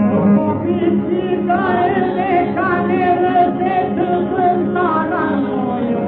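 Albanian song played from a 1930 Victor 78 rpm record: a vocal sextet sings an ornamented, wavering melody with an instrumental sextet underneath, and the voices come in over the instruments about a second in. The old recording sounds narrow and dull, with no high end.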